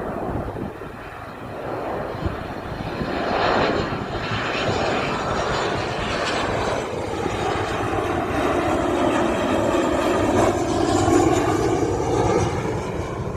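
Jet airliner's engines on the landing approach, a broad roar that swells as the aircraft passes and is loudest near the end, with a low rumble of wind underneath.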